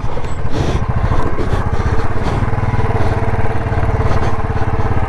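Royal Enfield Bullet 350's single-cylinder engine running steadily at low revs, an even pulsing beat, as the bike rolls slowly down a rough slope.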